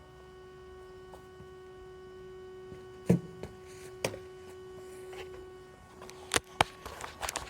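A steady electrical hum that fades out near the end, with a few sharp clicks or knocks: one about three seconds in, one about a second later, then several close together near the end.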